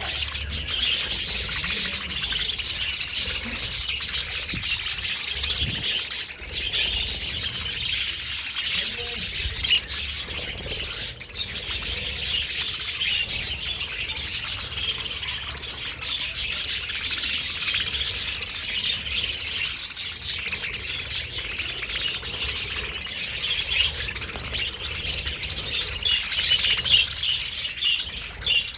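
A flock of budgerigars chattering and chirping without a break, many birds calling over one another.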